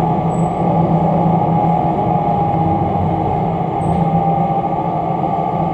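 Steady drone of the Bathara Kresna diesel railbus running slowly along the track, its engine and wheels on the rails heard from inside the passenger cabin.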